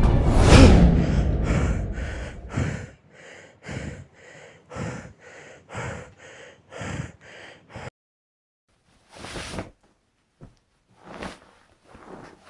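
A loud hit of film score dies away at the start. Then a person breathes hard in short, quick breaths about two a second, and near the end gives a few separate, deeper gasps.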